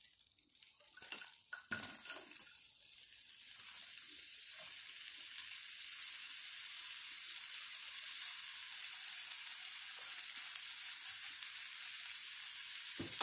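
Diced onion frying in melted butter in a non-stick frying pan: a few knocks as the onion goes into the pan about a second in, then a steady sizzling hiss that builds over the next few seconds. Near the end the onion is stirred with a silicone spatula.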